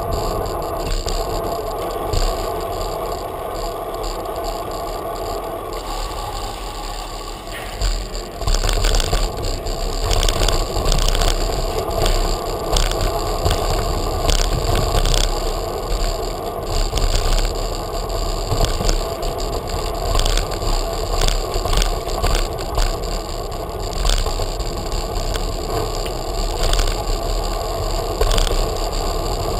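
Bicycle rolling over stone paving and cobbles: steady tyre and riding noise with clattering jolts over the bumps, rougher and louder from about eight seconds in.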